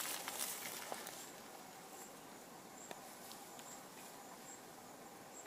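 Quiet outdoor ambience: a few light rustles and clicks in the first second, then a steady faint hiss with an insect chirping high and short, about twice a second.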